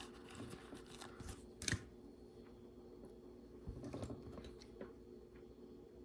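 Faint handling noises of Lego pieces and a sticker sheet: small clicks and light rustling, with a sharper click about a second and a half in and a short cluster of taps around four seconds in.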